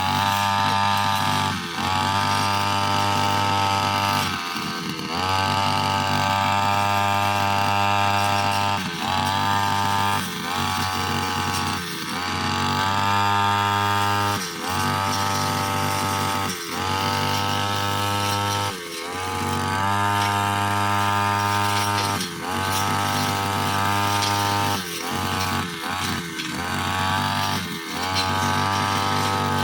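Brushcutter engine running at high revs, its pitch dipping briefly and recovering every few seconds as the blade cuts into grass.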